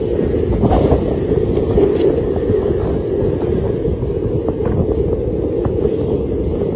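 Steady low rumble of wind buffeting a phone microphone carried at a run.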